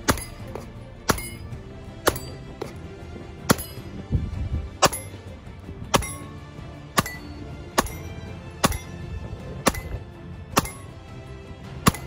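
Custom Glock 19 9mm pistol fired in steady single shots, about one a second, roughly a dozen in all, with metallic clinks from steel targets, over background music.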